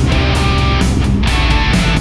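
Heavy rock music with guitar and a steady beat.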